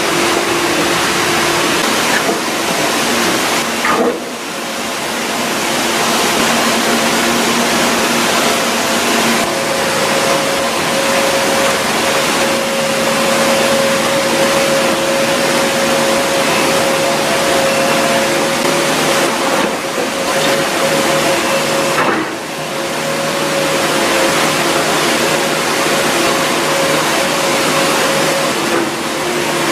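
Heavy machinery running: a loud, steady mechanical noise with a hiss over it and a few faint held tones, briefly dropping about 4 seconds in and again about 22 seconds in.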